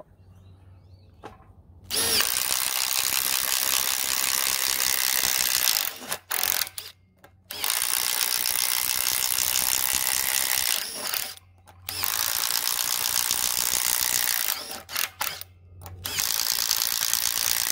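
Makita 18V Quick-Shift impact driver boring 1-inch holes, its impact mechanism hammering rapidly as the big bit loads it and binds. It comes in several runs of a few seconds each, separated by short pauses and quick trigger blips.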